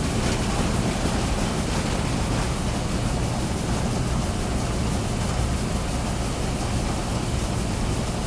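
Rice combine harvester running steadily while cutting: a constant engine drone under a broad, even rushing noise from the machine.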